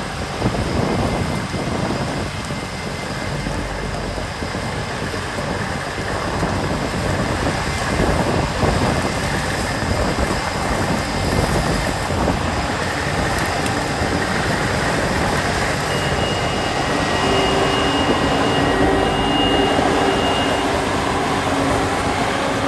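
Self-propelled pea harvester running steadily in the field, with a continuous engine and machinery noise. A steady whine joins in for a few seconds near the end.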